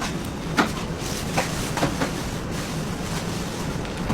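Bakery production-line machinery running with a steady hum, with a few short knocks and clatters during the first two seconds.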